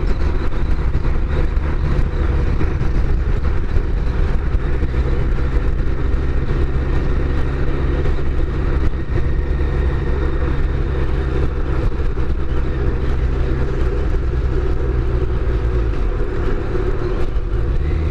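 Kawasaki GTR1400 inline-four engine running steadily at cruising speed, heard from the rider's position under a constant rush of wind and road noise.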